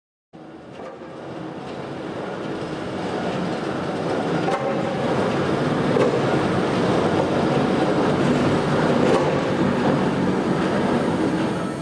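Railway turntable rotating under the steam locomotive SŽ 06-018, a steady mechanical rumbling noise of rail and running gear. It starts suddenly and grows louder over the first four or five seconds, then holds steady.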